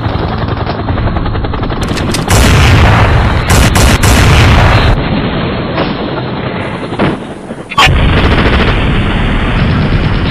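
Recorded battle sound effects: dense, continuous gunfire with booms, loud throughout. It grows louder about two seconds in and again about eight seconds in.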